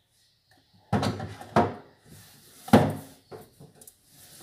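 Knocks and thuds of kitchen items being handled and set down on a counter: three solid knocks, the third the loudest, followed by a few light clicks near the end.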